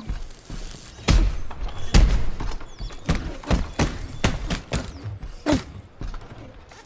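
A mech exoskeleton (AMP suit) punching a heavy bag: two heavy thuds about one and two seconds in, then a quicker run of lighter blows.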